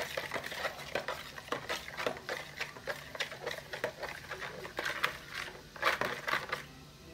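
Metal spoon stirring milk and water in a plastic bowl to dissolve sugar, with quick, irregular ticks and scrapes of the spoon against the bowl. The stirring stops shortly before the end.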